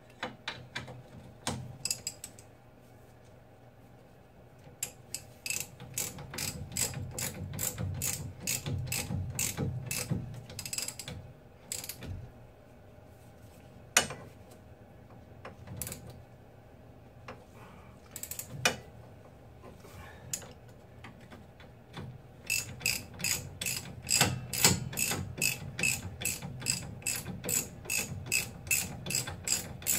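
Hand socket ratchet clicking in quick runs as the rear strut-to-knuckle bolts are tightened, with a few single sharp metallic knocks between the runs.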